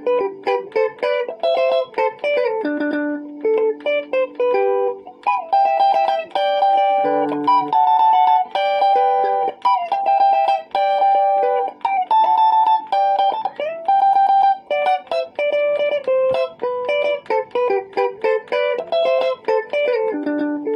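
Stratocaster-style electric guitar playing a fast, picked sungura lead melody: quick runs of single notes, with a few notes bent upward.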